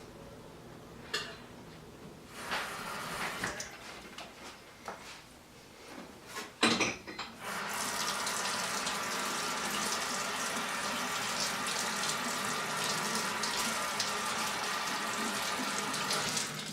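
Dishes clinking and knocking sporadically, with one sharp knock about seven seconds in, then water running steadily from a tap into a sink for the rest.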